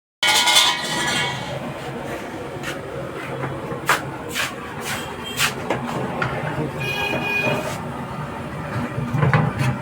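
Kitchen clatter: scattered clinks and knocks of utensils against cookware over a steady background hum, with two brief ringing high tones, one about a second in and one about seven seconds in.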